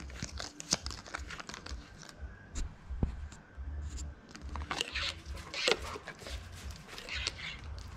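Crinkling and tearing of the card and plastic packaging on a toy bubble-wand tube as it is handled and opened, heard as scattered small clicks and crackles, busiest about five seconds in.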